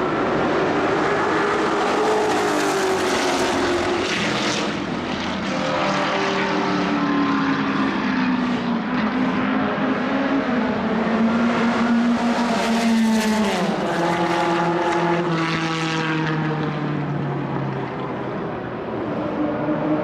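1960s racing car engines running during free practice, the engine note rising and falling steadily throughout, louder around three seconds in and again past twelve seconds, with a falling pitch sweep near fourteen seconds.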